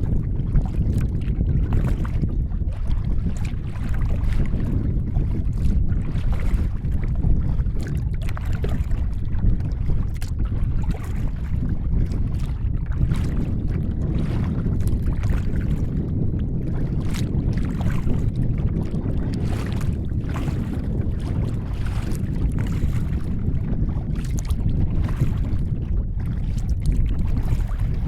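Steady wind noise buffeting the microphone on an open kayak, with frequent small, irregular splashes of wavelets slapping against the hull.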